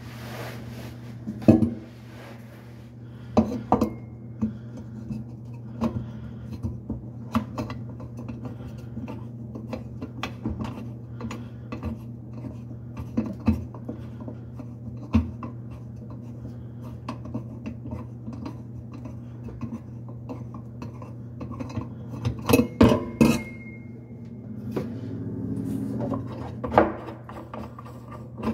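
Scattered metallic clinks, knocks and scrapes from work on faucet fittings under a stainless steel sink, with a quick cluster of sharp clinks about twenty-three seconds in, over a steady low hum.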